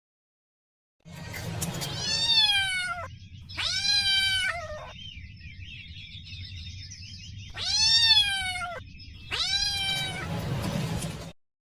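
Kitten meowing four times in two pairs, each a long high meow that rises and then falls in pitch, over background music.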